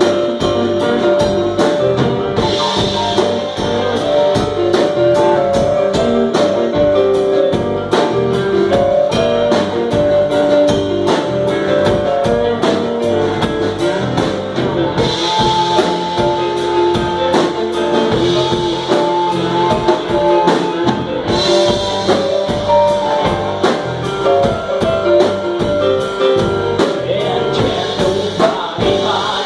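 Live band playing a number with a steady drum beat, electric guitars and electric keyboard, with a male singer.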